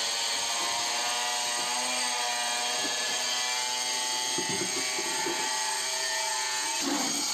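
A motor running steadily with a hum full of even overtones, cutting off suddenly near the end.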